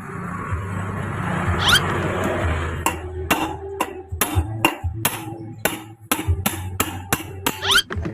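A run of sharp hammer blows, about three a second, starting about three seconds in.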